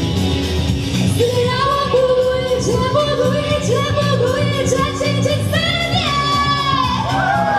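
A woman singing a Chinese pop song into a microphone over backing music. Her voice comes in about a second in and holds a long note with vibrato near the end.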